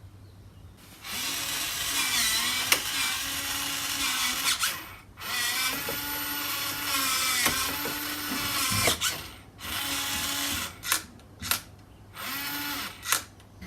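Nuki Smart Lock's electric motor whirring as it turns the key in the door lock during its calibration. It runs in two long stretches of a few seconds each and then two short ones, with sharp clicks and brief pauses between them as the bolt reaches its end positions.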